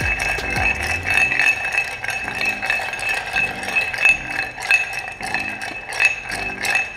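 Ice cubes clinking against a glass mixing glass as a long bar spoon stirs a cocktail over ice to chill and dilute it: a quick, steady run of light clinks.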